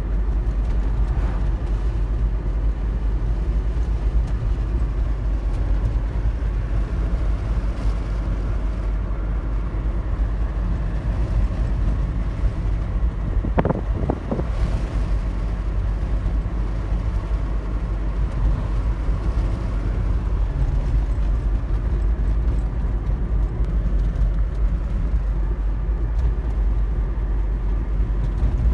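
Car driving at cruising speed, heard from inside the cabin: a steady low rumble of engine and tyre noise. A brief knock about halfway through.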